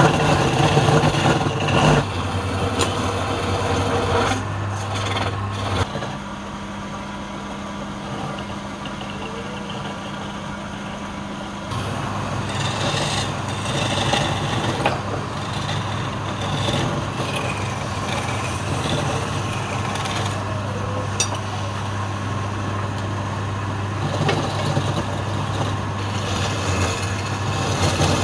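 Wood lathe running with a steady motor hum while a flat hand-held tool cuts and scrapes the spinning wood, giving a continuous rasping. The hum drops lower for a few seconds about a quarter of the way in, then returns.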